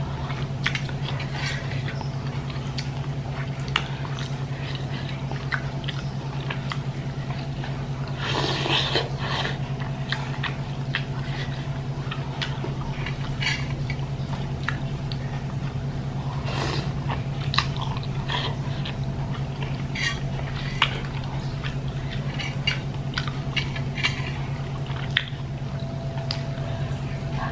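Close-up chewing of a mouthful of bakso noodles and meatballs, with scattered light clicks of a metal fork and spoon against a ceramic bowl. A steady low hum runs underneath.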